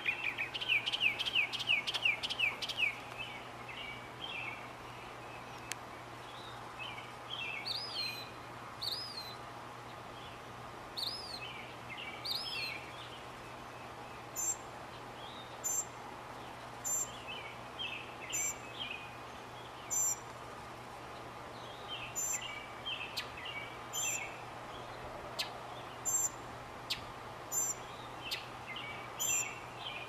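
Northern mockingbird singing: a fast run of repeated down-slurred notes at the start, then a string of varied short phrases, some with rising swoops. Through the second half a sharp, high note recurs about once a second between the phrases.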